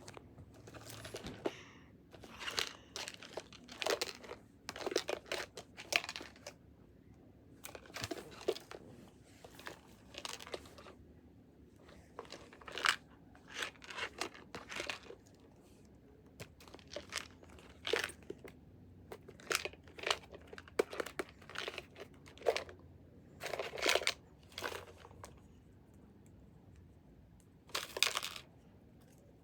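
Wrapper of a surprise egg being torn and crinkled open by hand: irregular bursts of crackling and tearing, with brief pauses between.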